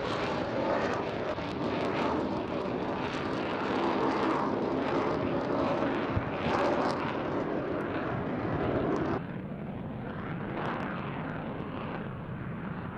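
Twin General Electric F110-GE-129 turbofans of a Boeing F-15QA running at high power in reheat as the jet pulls up and climbs away, a loud jet noise with crackling through it. About nine seconds in, the sound turns suddenly duller and quieter.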